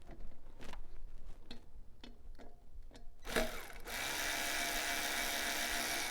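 A few light tool clicks, then about three seconds in a small power tool starts and runs steadily for a couple of seconds, backing out the 10 mm bolt that holds an engine ground wire.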